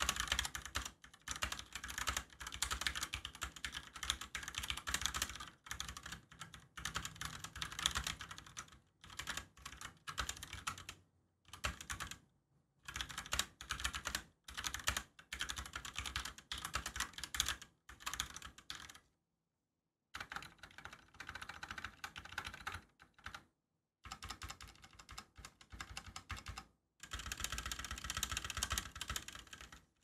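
Typing on an Akko Neon 3061 60% mechanical keyboard with Gateron Orange tactile switches in a plastic case: runs of rapid key clicks and clacks broken by brief pauses, the longest about two-thirds of the way through. The board's typing sound is a little hollow.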